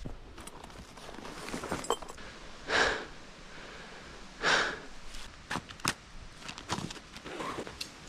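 Hands handling a backpack and the gear clipped to it: fabric rustling and light clicks, with two short, louder swishes.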